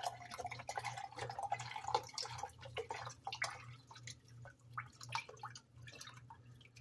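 Chicken broth pouring from a carton into a plastic quart container, with splashing and dripping. The pour is steady for about the first three seconds, then thins to scattered drips.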